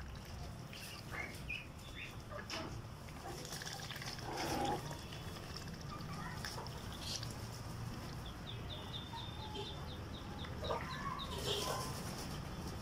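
Mixed flock of young chickens and ducks in a pen calling softly: scattered short clucks and peeps, with a louder call about four and a half seconds in and a quick run of high peeps about eight seconds in.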